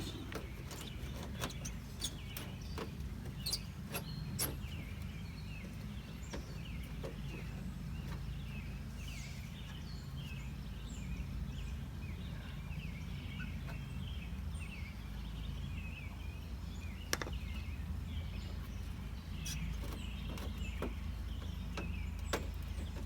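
Scattered sharp clicks of plastic push clips being pried and popped out of a truck's radiator cover, over a steady low background rumble with birds chirping throughout.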